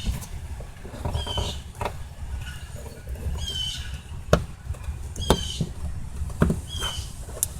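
A bird chirping over and over, about five short high calls that drop in pitch, with scattered sharp clicks and knocks and a steady low rumble underneath.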